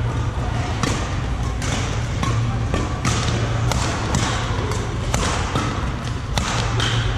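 Badminton rackets striking a shuttlecock in a rally, a quick series of sharp hits about two a second, over a steady low hum.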